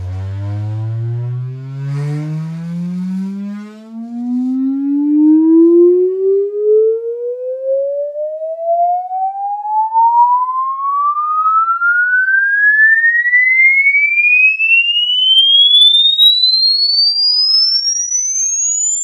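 Microlab M-700U 2.1 PC speakers playing a sine-sweep test tone that glides steadily upward, from deep bass to a high whistle. In the bass at the start the tone is thick with overtones, then it thins to a single pure tone as it climbs.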